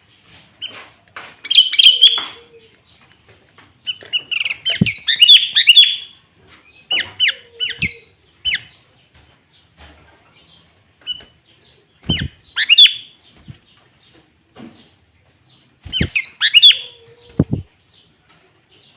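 Sooty-headed bulbul singing loud, quick bubbling phrases of sweeping notes, in about five bursts separated by short pauses.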